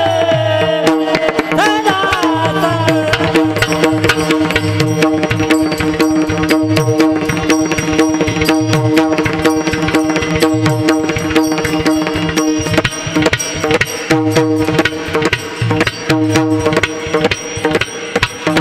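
Kirtan accompaniment: a mridang (two-headed barrel drum) playing rapid strokes together with small brass hand cymbals (taal), over a steady held note. A sung line trails off in the first few seconds.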